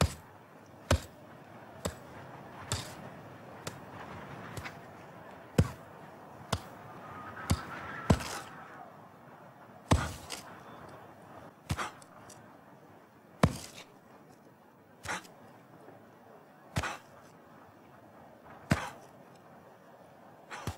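Spade digging into earth: a series of sharp thunks as the blade is driven into the soil, about one a second at first, then slowing to one every couple of seconds.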